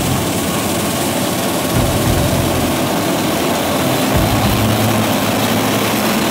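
New Holland CR980 combine harvester running close by while harvesting rapeseed: a loud, steady noise of engine and threshing machinery.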